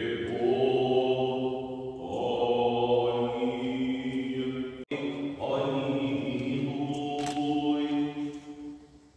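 Orthodox church choir singing an unaccompanied liturgical chant in long held notes, in two phrases with a sudden break a little before the middle, fading out near the end.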